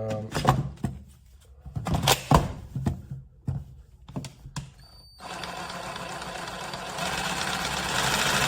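Cordless brushless jigsaw running with no load, its blade motor starting about five seconds in and rising in speed and loudness under the variable-speed trigger. Before it starts there are a few knocks and clicks from the saw being handled.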